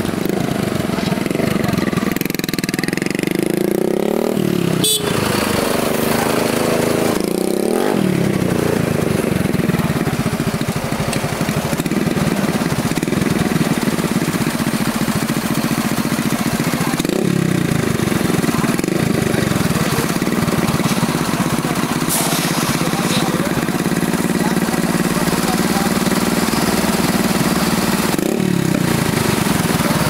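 Motorcycle and traffic engines running, rising and falling in pitch several times as they rev up and ease off. A sharp click comes about five seconds in.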